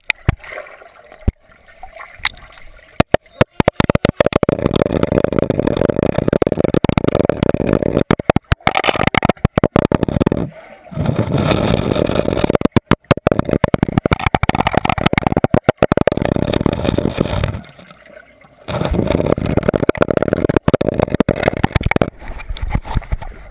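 Muffled underwater noise from a GoPro in a swimming pool: a dense, low rush of water and bubbles against the camera housing, dropping away briefly three times.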